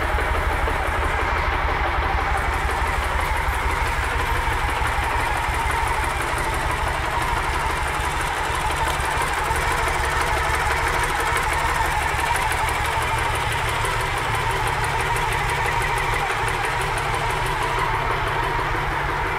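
A 2006 Victory Touring Cruiser's stock Freedom V-twin engine idling steadily, with a low, even pulse and no revving.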